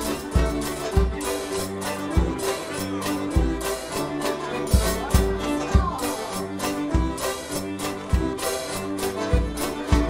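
Live English ceilidh dance band playing a dance tune: fiddle leading over bass saxophone, banjo, melodeon and drum kit, with a steady bass-drum beat.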